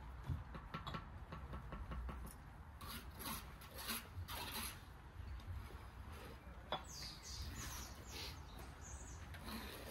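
Bricklaying: a trowel scraping and spreading cement mortar along a brick wall in irregular strokes, with a few sharp clicks as bricks are set down.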